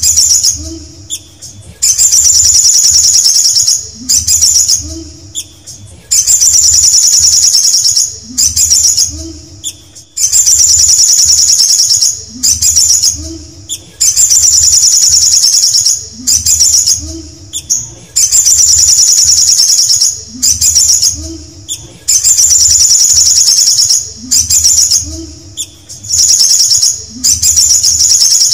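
Male olive-backed sunbird singing a high, fast trilling phrase over and over, about one every two seconds. Its wings flutter as it sings.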